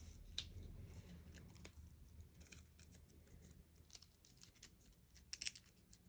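Faint rustling and light ticks of paper scraps and a clear plastic transfer sheet being handled on a craft table, with a quick cluster of crisper ticks near the end.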